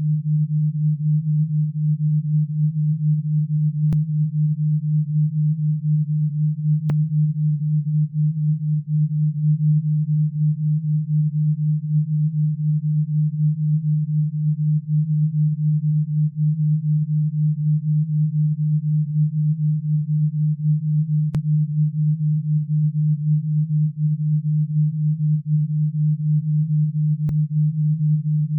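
Synthesized alpha-wave tone: one low, steady pure tone whose loudness wobbles quickly and evenly, a brainwave beat pulsing in the 8–12 Hz alpha range.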